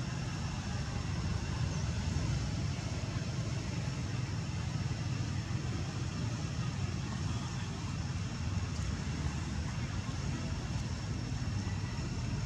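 Steady low outdoor rumble with two thin, steady high tones over it; no separate calls or knocks stand out.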